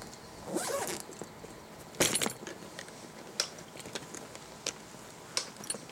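Hands handling a leather motorcycle sissybar bag: its metal zipper pulls and hardware jingle and clink, with one sharp metallic clack about two seconds in and a few light clicks after.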